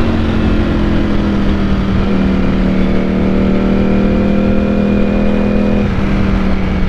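Ducati Panigale V4 S engine under steady throttle in fourth gear at highway speed, heard from the rider's seat with wind rush underneath. The engine note holds steady and eases down slightly, dipping a little near the end as the throttle is backed off.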